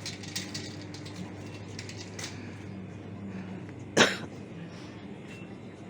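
A single short cough about four seconds in, over the steady low hum of a supermarket.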